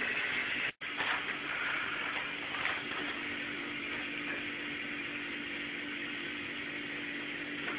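Steady background hiss with a faint low hum, broken by a brief silent gap under a second in.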